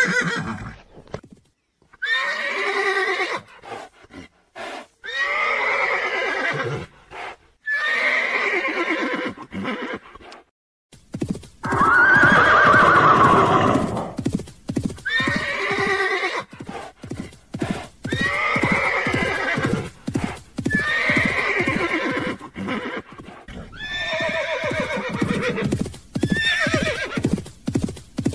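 Horse whinnying again and again, each call a second or two long, the loudest a little before the middle. Hooves clip-clop in a quick, steady rhythm from a bit over a third of the way in.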